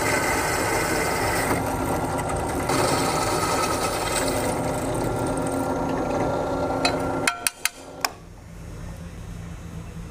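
Drill press running with a twist bit cutting a hole through a small metal bracket, a steady motor whine. About seven seconds in the cutting stops with a few sharp clicks, leaving a quieter hum.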